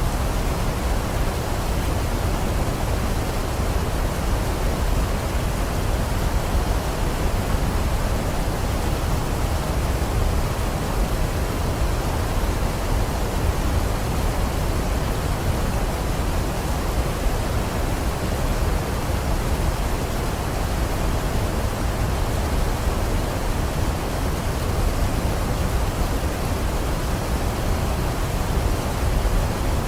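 Waterfall: falling water making a steady, even rush, heaviest in the low end.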